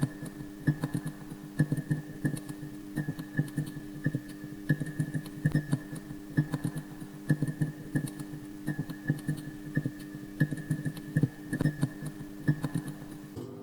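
Irregular sharp clicks and knocks, several a second, over a steady low hum.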